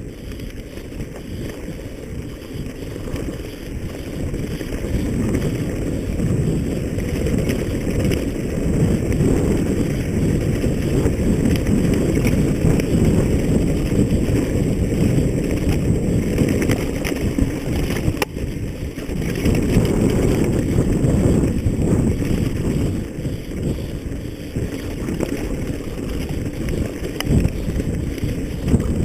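Wind buffeting the microphone: a dense low rumbling rush that swells over the first several seconds and then stays loud.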